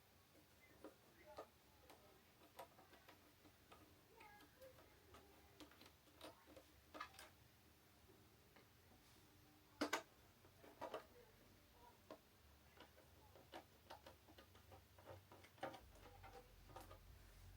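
Faint, irregular clicks and taps from parts and tools being handled while working on an Xbox Series S, with one louder clack about ten seconds in.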